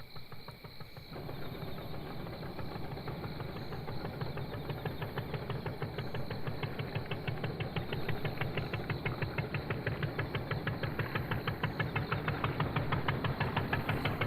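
An engine running with a rapid, even beat. It comes in about a second in and grows steadily louder.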